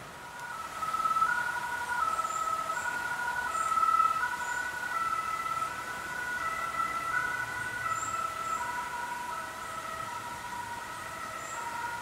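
Two-tone emergency-vehicle siren (German Martinshorn) alternating between a lower and a higher pitch. It swells about a second in, then slowly fades.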